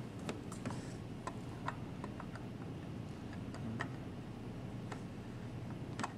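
Irregular light clicks and taps of a digital module and its DB37 cable connector being handled and slid into a slot of an NI cRIO chassis, over a steady low hum.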